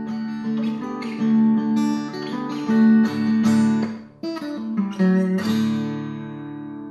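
Strummed acoustic guitar music with changing chords; a last chord struck about five and a half seconds in rings out and fades away.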